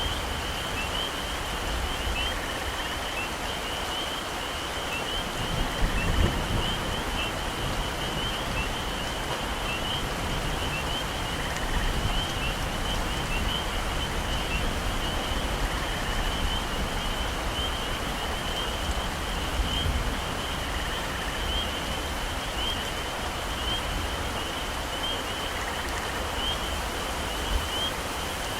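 Heavy rain falling steadily in a tropical forest, with a dense, high-pitched chorus of small animals chirping over it. A brief low rumble comes about six seconds in and again near twenty seconds.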